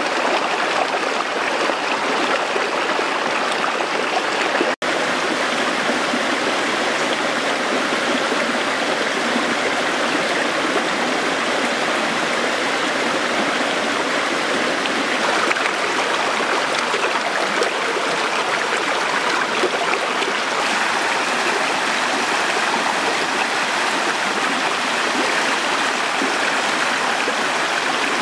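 Shallow rocky stream rushing and splashing over stones close by, a steady even rush. The sound cuts out for a split second about five seconds in.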